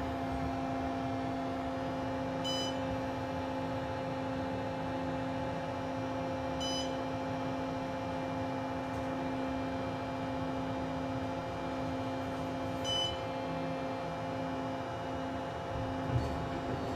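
Otis hydraulic elevator descending with a steady hum, its floor-passing beep sounding three times as it passes each floor, and a single thump about a second before the end as the car stops at the lobby.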